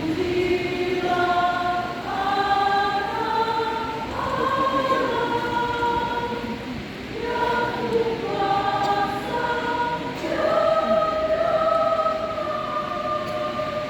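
Church choir singing in harmony, with several voices holding notes together in phrases. There is a short breath between phrases about seven seconds in.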